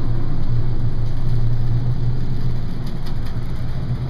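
Steady low drone of a research ship's engines and machinery, heard inside the vessel. A few faint clicks come about three seconds in.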